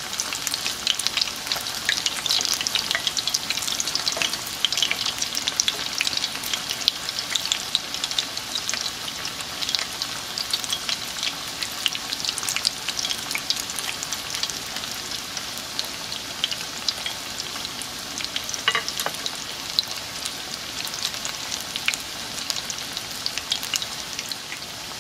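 Hot oil sizzling steadily around breaded potato cakes shallow-frying in a cast-iron skillet, with a constant fine crackle of small pops.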